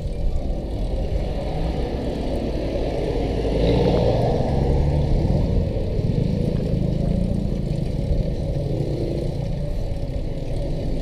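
Steady rumble of wind and road noise on a handlebar-mounted camera as a bicycle rides down beside a queue of slow-moving cars, their engines running; a little louder from about four seconds in.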